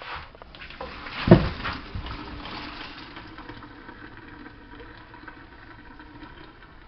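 Pasta water poured from a cooking pot through a colander into a stainless-steel sink. There is a sharp knock about a second in, then a gush that dies away to a faint trickle.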